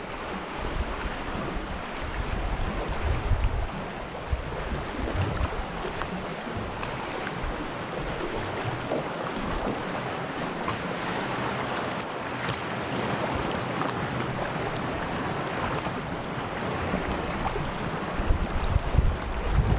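Lake waves sloshing and lapping, with wind gusting and rumbling on the microphone; the gusts grow stronger near the end.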